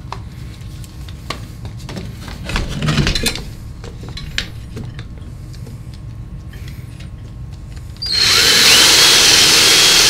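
Cordless drill fitted with a hole saw cutting into a wooden 2x4 wall header. There is handling and positioning noise with a few knocks at first, then about eight seconds in the drill starts and runs steadily and loudly into the wood with a high whine.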